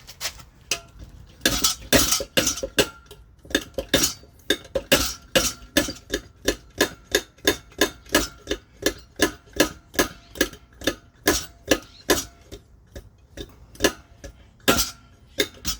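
Hand pump of a Swiss Army petrol field stove being worked, pressurizing the fuel tank: a steady run of sharp metallic clicking strokes at about two a second, starting about a second and a half in and pausing briefly near the end.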